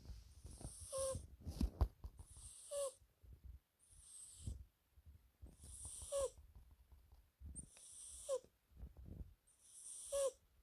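British Shorthair cat snoring in its sleep. About six breathy snores come roughly every two seconds, each ending in a short whistle that drops in pitch, over a low rumble.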